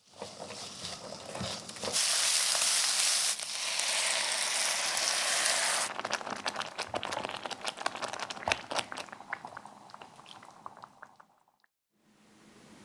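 Vegetables and tomato paste sizzling in a hot frying pan, then water poured in at about two seconds hits the hot pan with a loud hiss for about four seconds. After that it settles into crackling and popping that fades away near the end.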